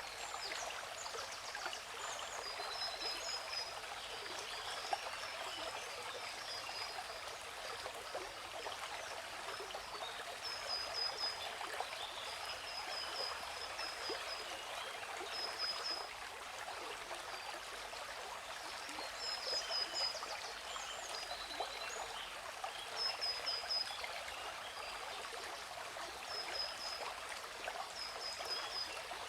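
Steady rushing water of a waterfall, with small birds chirping over it: short high chirps, often two or three quick notes together, repeating every few seconds.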